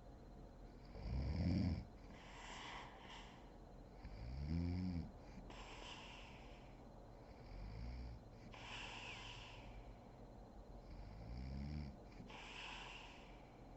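A sleeping woman snoring: four low snores, about one every three and a half seconds, each followed by a breathy exhale. The first snore, about a second in, is the loudest.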